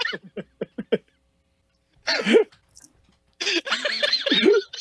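Men laughing: a quick run of short laughing pulses, a pause of about a second, then more laughter near the end.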